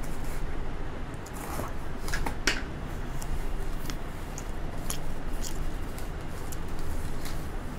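Packing tape on a cardboard shipping box being slit with a small blade, with a cluster of sharp scraping, crackling strokes about two seconds in, then the cardboard flaps pulled open and the box handled, with scattered light knocks and rustles. A steady low hum runs underneath.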